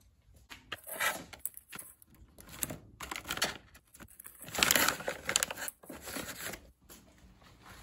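A bag of dog treats crinkling as a hand grabs and handles it, in irregular rustles, loudest about halfway through and fading off near the end.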